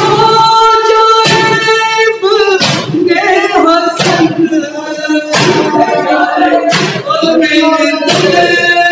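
A man's voice singing a noha, an Urdu lament, in long held and wavering notes over a microphone, with a group of men beating their chests (matam) in time: a loud slap about every second and a half.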